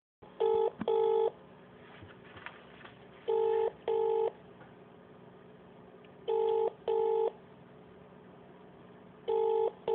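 Telephone ringback tone of an outgoing call ringing out over a phone line: a double ring, two short bursts of a steady low tone, repeating every three seconds, four times in all. Its paired burst rhythm is the British ringing pattern.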